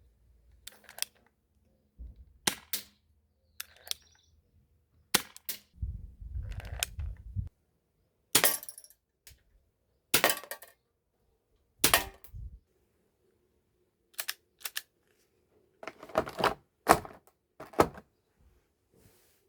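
Cheap airsoft revolver being fired and worked: a dozen or so sharp snaps and clicks at uneven intervals, several much louder than the rest, with a brief low rumble of handling about six seconds in.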